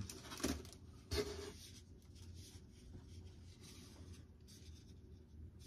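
Faint rustling and rubbing of plastic wrapping and foam packaging as a model jet's nose cone is lifted out of its box, with two short louder scuffs about half a second and a second in.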